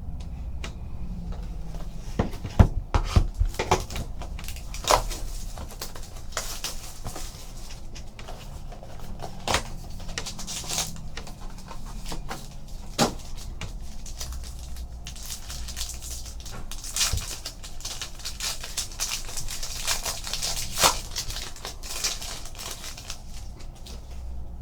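Trading-card boxes and packs being opened and the cards handled: wrappers tearing and crinkling, cards sliding against each other, with scattered sharp taps and knocks on the table.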